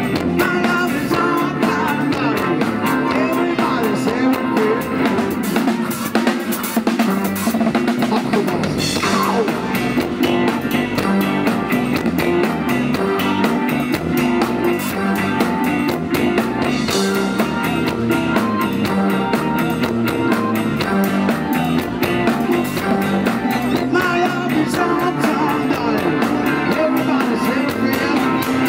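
Live rock band playing at full volume: drum kit, electric guitars and bass guitar, with a man singing into a microphone.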